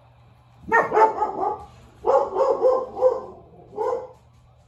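Pet dog barking loudly, in three quick runs of several barks each.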